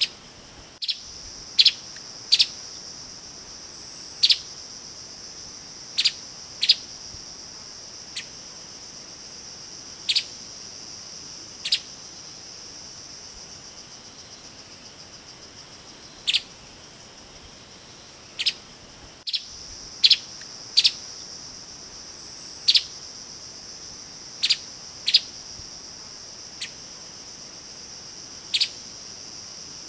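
Streaked spiderhunter giving short, sharp calls, often two in quick succession, every second or few, over a steady high-pitched insect drone.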